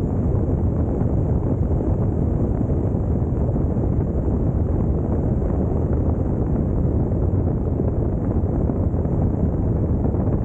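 Steady low wind rush on the microphone of a camera mounted on a Honda NC750X DCT motorcycle being ridden, with road and engine noise blended in and no single engine note standing out.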